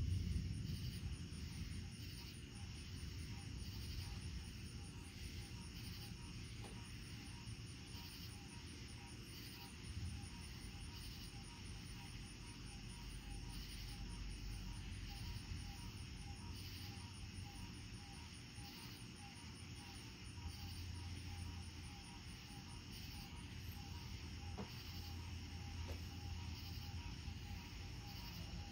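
Crickets chirping in a steady, regular rhythm on a stormy night. The tail of a thunder rumble dies away at the start, and a low distant rumble of thunder goes on underneath, swelling slightly near the end.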